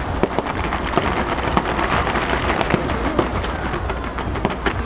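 Fireworks crackling densely, a continuous hiss of crackle with many sharp pops scattered through it.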